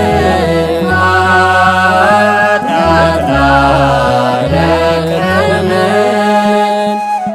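A choir of men singing an Ethiopian Orthodox hymn (mezmur) in a chanting style, over steady, held low accompaniment notes that change every second or so.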